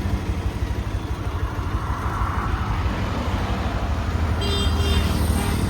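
Diesel engine of a JCB 3DX Plus backhoe loader running steadily with a deep, loud rumble. A brief high-pitched tone sounds near the end.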